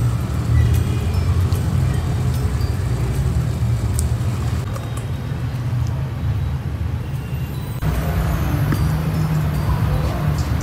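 Pot of water at a rolling boil on the stove, heard as a low, steady rumble with a noisy wash over it, and a few light metallic clinks of tongs against a stainless-steel bowl. The sound changes abruptly about eight seconds in.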